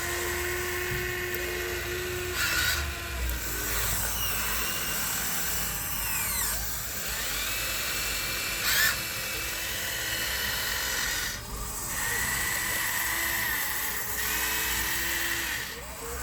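Electric motors and gearing of radio-controlled construction models whining steadily, with the pitch sliding up and down as the controls are worked. There are short louder bursts about three seconds in and again about nine seconds in.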